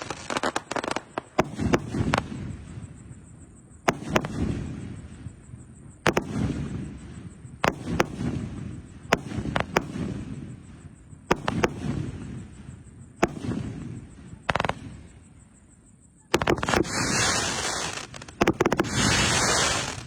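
666-shot, 2-inch fireworks cake firing: sharp reports one every one and a half to two seconds, each trailing off in a low rumble. Near the end comes a dense, continuous barrage lasting about four seconds.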